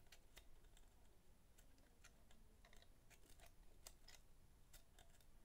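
Near silence with faint, irregular small clicks and ticks: a stiff brush worked along a minidisc player's laser-sled worm gear.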